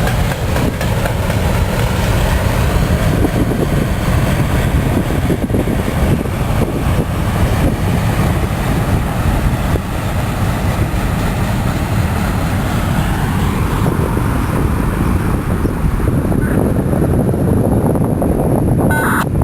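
Northbound CSX freight train rolling past, a steady, loud rumble of its rail cars.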